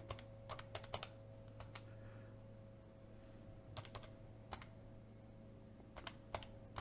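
Faint, irregular computer keyboard key presses, a dozen or so scattered clicks, over a steady low electrical hum.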